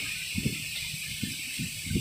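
Strong wind blowing in gusts: a steady rushing hiss, with irregular low buffeting of the wind on the microphone.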